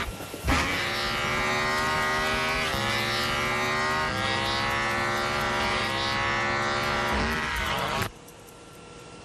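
Electric hair clippers buzzing loudly, the motor's pitch shifting up and down in steps several times, then cutting off suddenly near the end.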